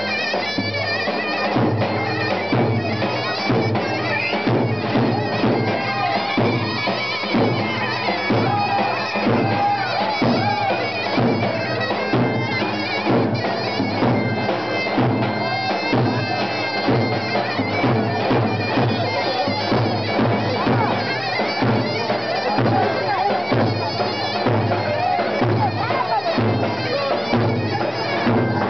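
Loud Turkish folk dance music: a reedy wind instrument playing a melody over a steady drum beat, with crowd voices underneath.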